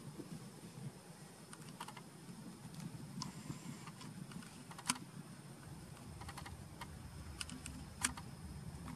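Faint, irregular light clicks and taps, sometimes two or three close together, over a low steady outdoor rumble; the two sharpest clicks come about halfway through and near the end.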